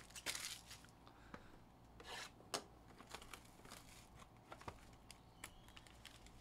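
Clear plastic shrink-wrap being pulled off and crinkled by hand as a trading-card box is opened: faint, scattered rustles and crackles, with a sharper click about two and a half seconds in.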